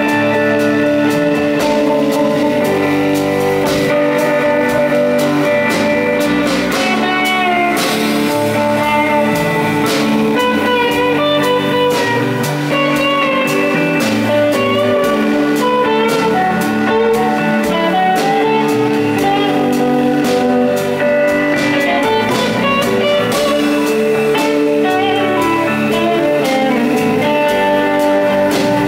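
Live rock band playing: electric guitars over bass guitar and a drum kit.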